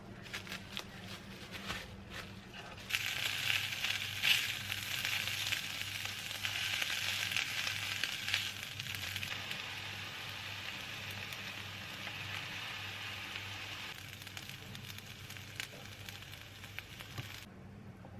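Food sizzling and crackling in a hot frying pan, a dense hiss that starts about three seconds in after a few light clicks and cuts off abruptly near the end.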